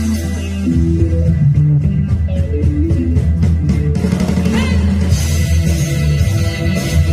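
Live band playing rock music: electric guitar, bass guitar and a drum kit keeping a steady beat, amplified through the stage sound system.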